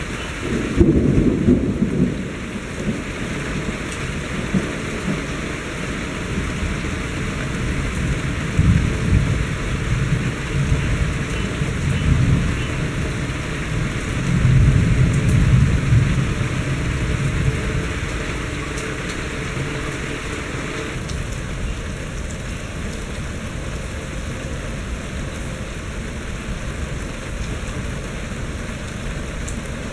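Steady rain falling during a thunderstorm. A thunder crack comes suddenly about a second in, and longer rolling rumbles of thunder follow around the middle.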